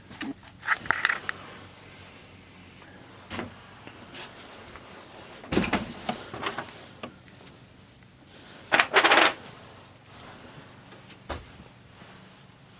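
Scattered clicks and rattles of small parts and containers being handled, with a louder rattle about nine seconds in and a single click near the end.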